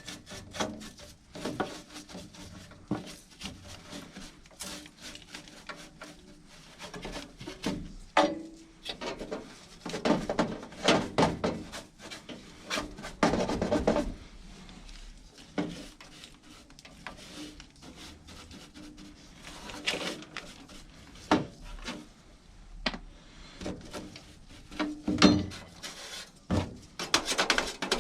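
Hands-on repair work: irregular clicks, knocks and rubbing, scraping noises as tools and parts are handled, with louder clusters of knocks about ten and thirteen seconds in and again near the end.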